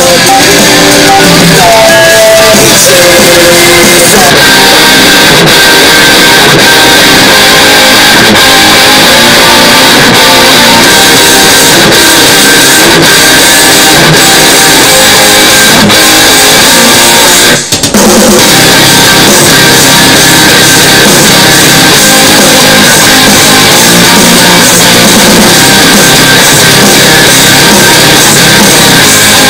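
Rock music with guitar and drum kit playing through the Xqisit xqS10 Bluetooth portable speaker in a sound test. The sound drops out for a split second about two-thirds of the way through.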